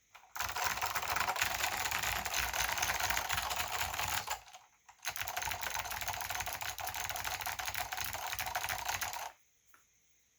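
Fast typing on a Northgate OmniKey/Plus keyboard with Alps SKCM White switches and ABS doubleshot keycaps: a dense, rapid stream of key clicks that pauses briefly about halfway through, resumes, and stops shortly before the end.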